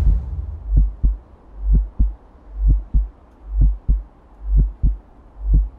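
Heartbeat sound effect: a deep, swelling low thump followed by a short, sharp beat, repeating about once a second.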